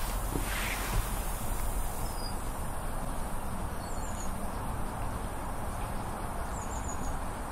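Steady hissing from the fired-up RETROL SE-02 model steam plant under steam, with a brief stronger puff about half a second in. Faint bird chirps sound now and then.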